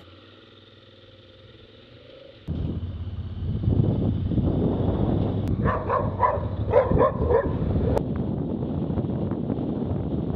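Wind and road noise from a moving motorcycle, coming in sharply after a faint start, with a dog barking in a quick run of about six barks near the middle.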